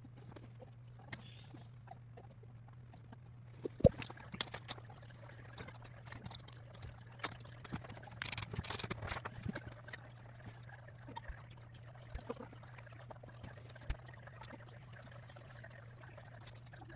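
Faint handling noise on a tabletop: scattered clicks and light knocks, the sharpest about four seconds in, and a short rustle of a paper sheet being handled about eight to nine and a half seconds in, over a steady low hum.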